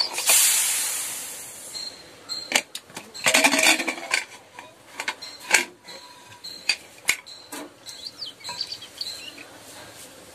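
Pressure cooker letting out its remaining steam with a hiss that fades over about two seconds. It is followed by a string of metal clinks and knocks as the aluminium lid is worked loose and lifted off.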